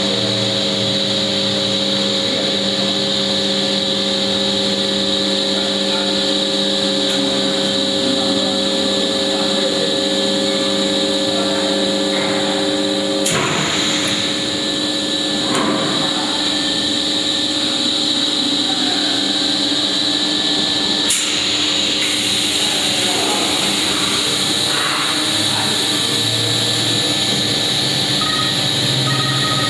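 Extrusion blow molding machine running with a steady hum and constant hissing. The hum stops at a sharp clank about 13 seconds in. A second clank comes about 21 seconds in, followed by stronger high hissing.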